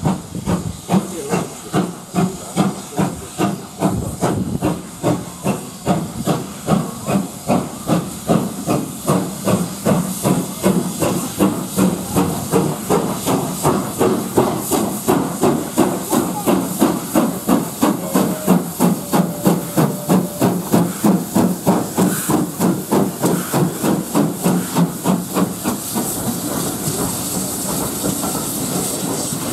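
GWR 'Hall' class 4-6-0 steam locomotive working a passenger train under steam, its exhaust beating at about two chuffs a second with hissing steam. Near the end the beats die away into the steady rumble of the coaches rolling past.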